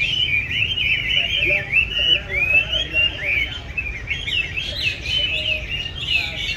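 Chinese hwamei (họa mi) singing: a fast, unbroken stream of varied rising and falling whistled notes without a pause.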